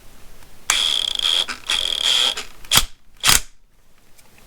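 Sockets and tools being handled: two short scraping, rattling stretches with a faint squeal in them, then two sharp clicks near the end.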